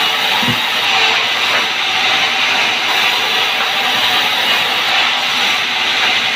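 Sawmill band saw running and ripping lengthwise through a large log, a steady loud hissing noise, with a low thump about half a second in.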